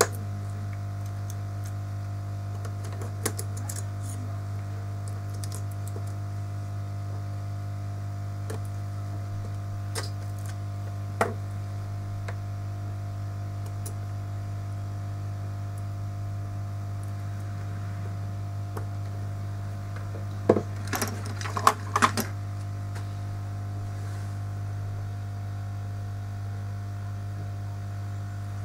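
Steady low electrical hum with scattered sharp clicks and taps of small repair tools on an iPhone 5s under repair, most of them bunched together about three-quarters of the way through.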